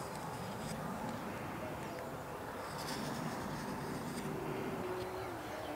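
Morakniv 106 sloyd knife slicing thin shavings from the handle of an alder spatula, short hissing cuts heard most clearly around the middle. A steady engine drone runs underneath, its hum dropping in pitch near the end.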